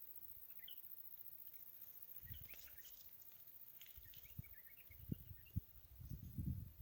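Faint, scattered chirps of small birds outdoors. About five seconds in come a few sharp low thumps, then a low rumble near the end.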